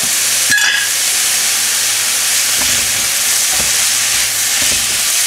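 Strips of beef, onions and wild mushrooms sizzling in a hot wok as they are stirred with wooden spatulas, with a few light knocks and scrapes of the spatulas against the pan.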